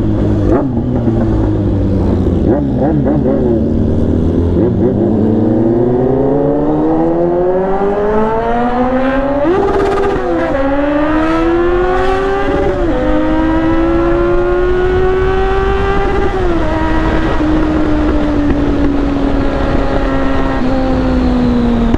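Kawasaki Z800's 806 cc inline-four engine pulling away from low revs and accelerating. Its pitch climbs steadily and drops sharply at each upshift, about ten, twelve and sixteen seconds in, then holds and slowly falls as the bike cruises. Wind rushes over the microphone throughout.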